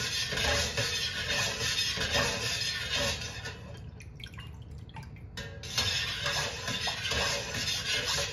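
A metal spoon stirring soy milk in a stainless steel stockpot, clinking and scraping against the pot, over background music that drops back briefly about four seconds in.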